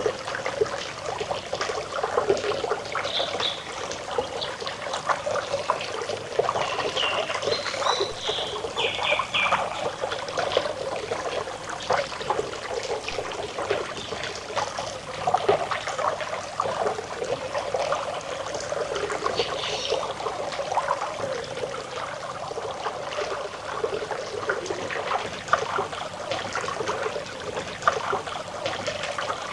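A small stream trickling and babbling over stones, a steady spattering water sound. A few brief bird chirps come through faintly, a couple in the first third and one again later.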